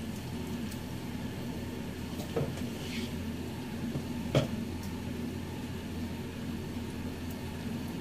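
Steady low room hum with two short knocks of a serving utensil against a plate, about two and four seconds in, the second louder.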